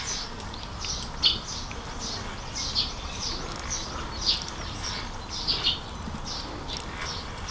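Small birds chirping: short, high chirps, each dipping slightly in pitch, repeated irregularly about two or three times a second over a faint low background rumble.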